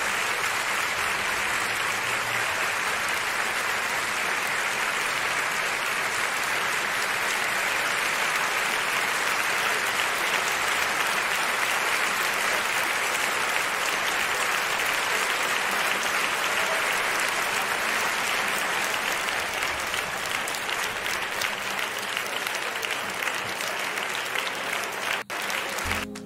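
Large audience applauding, a dense, steady clapping that carries on without a break and stops short near the end.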